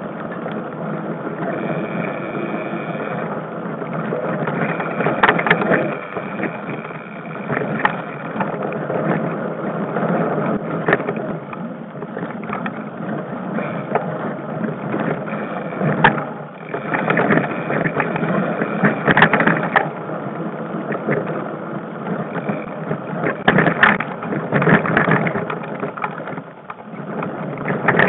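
Mountain bike ridden fast along a dirt forest singletrack: a steady rush of tyre and air noise with frequent knocks and rattles from the bike over bumps, and two brief high squeals.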